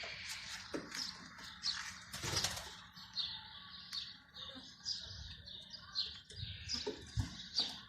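Small birds chirping over and over in short high calls, with a few brief sudden flutters of wings, loudest a little past two seconds in and near the end.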